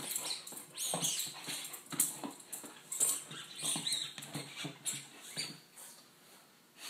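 An Akita pawing and nosing at an object on a hard floor: irregular scraping, scratching and rustling, with two short high-pitched squeaks, about a second in and again about four seconds in.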